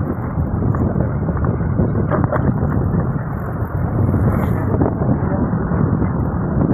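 Steady wind rumble on the microphone over the running and road noise of a moving vehicle.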